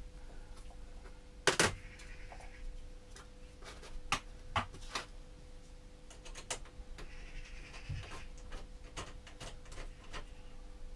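Scattered clicks and light rattles of a negative battery cable and its connector being handled and fitted by gloved hands, the sharpest click about one and a half seconds in, with brief rustles, over a faint steady hum.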